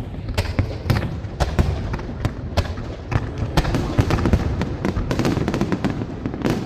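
Fireworks display going off: a rapid, irregular string of bangs and crackles, several a second, over a steady low rumble.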